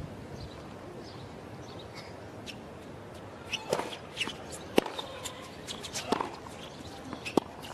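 Tennis rally on a hard court: from about three and a half seconds in, a series of sharp pops from racquets striking the ball and the ball bouncing, at uneven spacing of about half a second to a second and a half, over a hushed crowd.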